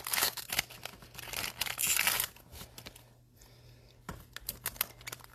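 Trading-card pack wrapper crinkling and tearing as it is opened by hand, in irregular bursts, with a brief lull about three seconds in and a few small clicks after.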